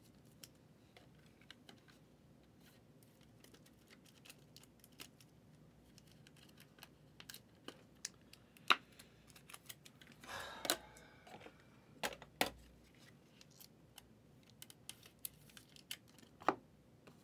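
Quiet, scattered light clicks and taps of trading cards being handled and sorted by hand, with a few sharper clicks and a brief louder rustle about ten seconds in.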